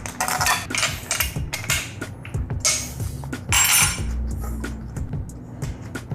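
Hand socket ratchet clicking in short, irregular runs as intake-manifold bolts are loosened, over background music.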